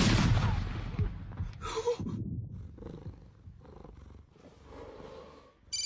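Loud noise dying away over about the first second, then badgers growling and snarling.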